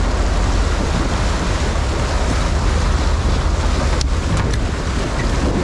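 Steady wind noise on the microphone and rushing sea water around a fishing boat under way offshore, with a brief lull and a few sharp clicks about four seconds in.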